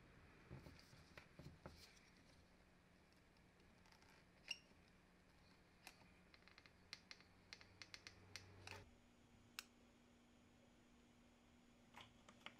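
Near silence: faint scattered clicks and small taps of hands handling a plastic syringe and a cartridge nozzle, over a low steady hum.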